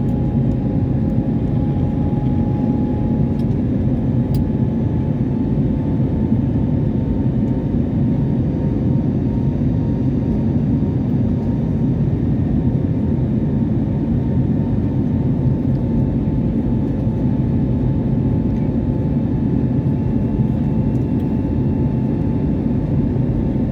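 Jet airliner's engines and rushing air, a steady loud roar with two faint steady tones running through it.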